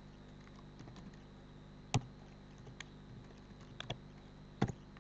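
Computer keyboard keys pressed one at a time: a scattered handful of separate key clicks, the loudest about two seconds in and a quick pair near the end.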